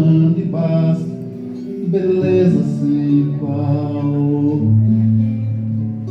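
Recorded song playing: acoustic guitar with a low, drawn-out male vocal line, between sung lyrics.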